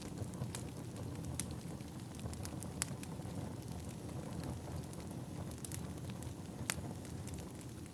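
Burning firewood crackling: a steady low rumble of the fire with sharp pops at irregular intervals, a few louder ones, the strongest about two-thirds of the way through.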